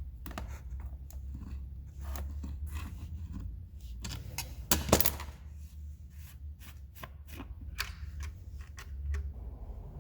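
Hand tools and small metal parts of a chainsaw clicking, clinking and scraping in an irregular run of sharp knocks, the loudest cluster about five seconds in, over a steady low hum.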